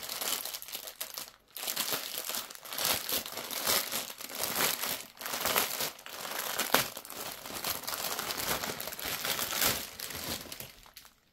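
Plastic bags of diamond-painting drills crinkling as they are handled, an irregular run of crackling with a short pause about a second and a half in.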